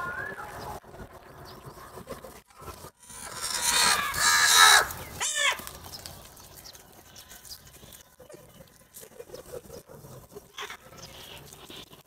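House crows calling. The loudest is a call lasting about a second and a half, about three and a half seconds in, followed at once by a short call and then scattered quieter calls.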